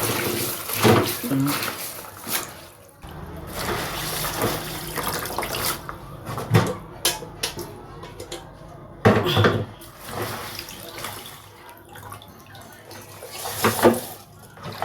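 Lemongrass being washed by hand in water: irregular splashing and sloshing with a few sharp knocks.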